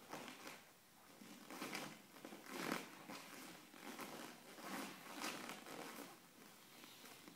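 Karate uniform rustling and swishing as a barefoot practitioner moves through a kata: several brief, quiet swishes with the strikes, a kick and the turns, the strongest a little under three seconds in.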